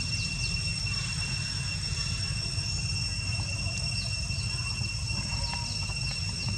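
A steady, high-pitched insect trill holding one pitch, over a constant low rumble, with a few faint short chirps.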